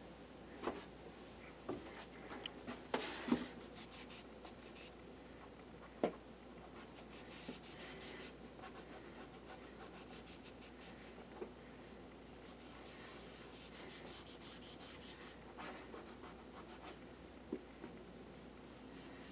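Hands working on a laptop: scattered light clicks and knocks of plastic and metal parts, with stretches of quick, repeated scratchy rubbing.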